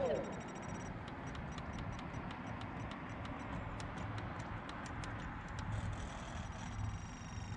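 The electric ducted fans of a Freewing AL37 RC airliner finish winding down in a falling whine right at the start, then light, unevenly spaced ticking, about four a second, over a steady low outdoor rumble.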